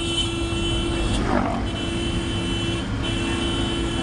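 A motor vehicle running steadily, with a constant low rumble and a steady hum.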